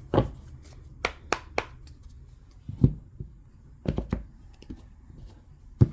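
Hands handling a deck of tarot cards: about eight irregular sharp taps and knocks of the cards against each other and the table.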